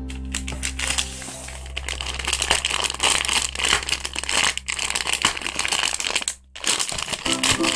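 Dense crinkling and crackling of packaging being handled close to the microphone, over background music. Both stop briefly near the end, and then the music returns.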